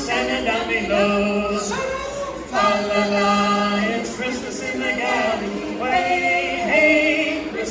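A choir of several voices singing, holding long notes together in harmony and moving from note to note every second or so.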